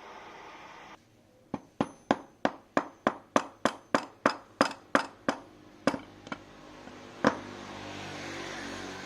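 Hammer blows on metal, about three a second, some fifteen in a steady run and then a few slower, heavier ones, with a faint ringing after each: hammer work on the washing-machine motor during a bearing replacement.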